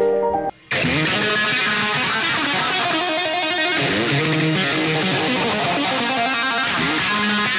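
A few last keyboard notes, a brief break just under a second in, then fast, busy electric guitar playing with the notes running together at a steady level.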